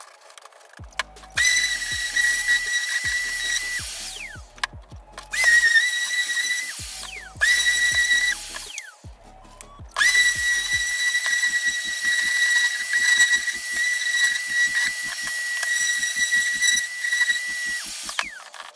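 Festool ETS 125 random orbital sander running against a wooden board in four bursts: a steady high whine that winds down with a falling pitch each time it is switched off. The last run lasts about eight seconds. Background music with a steady beat plays underneath.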